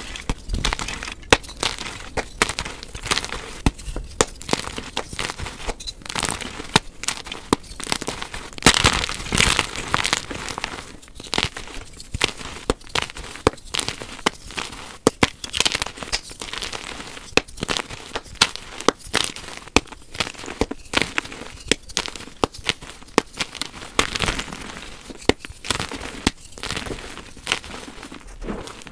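Blocks of gym chalk crushed and crumbled by hand into powder: a dense, irregular run of dry crunches and crackles, with sharper snaps as pieces break.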